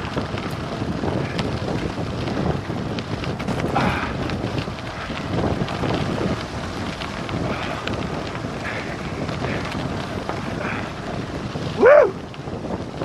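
Wind buffeting the microphone during a fast downhill bike descent on a gravel road, with rumble from the cyclocross tyres on the gravel. Near the end comes one short, loud pitched sound that rises and falls.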